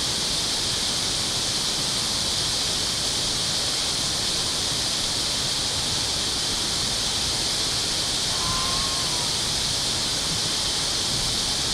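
Water rushing steadily through a dam, a loud, even hiss. A brief faint chirp about two-thirds of the way in.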